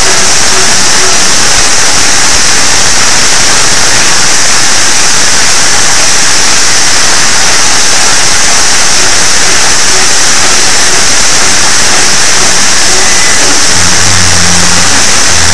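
Deliberately over-amplified jumpscare sound effect: a steady wall of harsh, clipped, distorted noise at full loudness, with a low buzzing tone coming in near the end.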